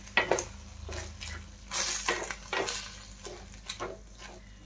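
Wooden spatula stirring paneer cubes and chopped vegetables in a steel kadhai, with irregular short knocks and scrapes against the pan; the sharpest come just after the start and around two seconds in.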